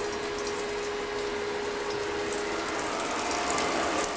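Breaded meat cutlets frying in hot oil in a frying pan: a steady sizzle under a steady hum. The sizzle grows louder and crackles more near the end as another breaded cutlet is laid into the oil.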